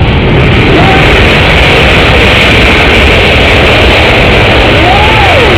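Boeing C-17 Globemaster III's four turbofan engines in reverse thrust during its landing rollout: a loud, steady jet roar that builds up just before and then holds.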